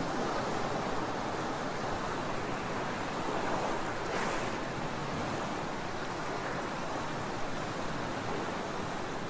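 Concrete Genie electric planetary floor grinder running, its tool heads wet-grinding concrete to strip an old epoxy coating: a steady, even rushing noise, with a brief louder swell about four seconds in.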